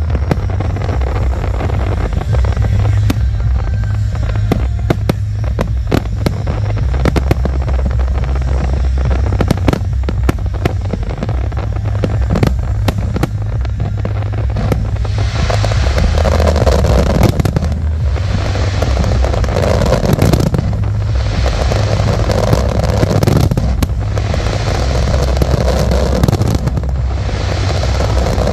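Fireworks display: rapid bangs and crackles of shells bursting over a steady low rumble. From about halfway in, waves of louder hissing crackle come every two to three seconds.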